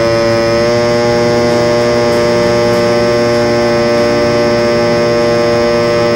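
Radio-controlled model airplane's motor and propeller running steadily at an even pitch.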